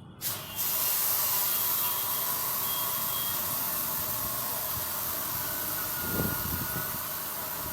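Steady, loud hiss of a pressurised gas jet, coming on about half a second in and holding even.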